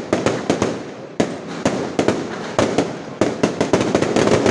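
Aerial fireworks display: an irregular string of loud bangs from bursting fireworks, several a second, with crackling between them, packing into a rapid volley near the end.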